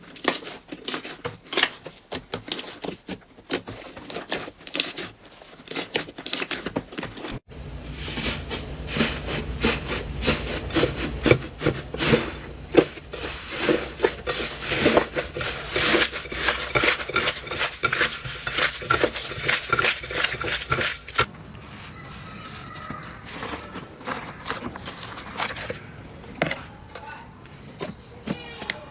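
Slime being squeezed, poked and stretched by hand, giving rapid sticky clicks and crackling pops. The sound changes abruptly twice, about a third of the way in and again about three quarters of the way in.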